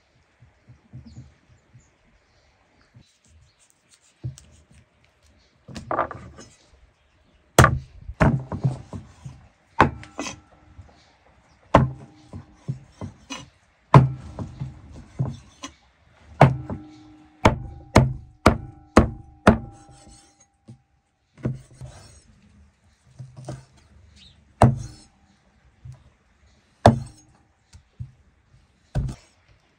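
Irregular chopping: a couple of dozen sharp blows of a blade striking wood, some in quick runs and some leaving a short ringing tone.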